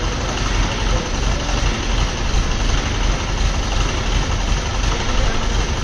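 Crane's engine idling steadily with a low rumble.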